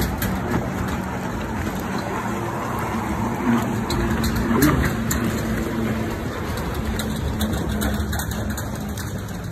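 Steady water noise on an open lake, with a low steady hum running through it.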